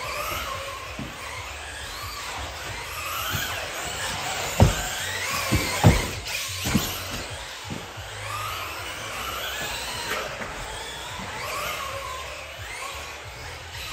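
Schumacher CAT L1R electric RC buggy's motor and drivetrain whining, rising and falling in pitch as it speeds up and slows down through the corners. Several sharp thumps come about four and a half to six seconds in.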